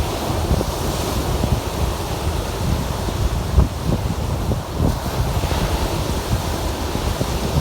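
Lake waves washing and breaking on the shore in a steady rush, with wind rumbling on the microphone and a couple of brief gusts about midway.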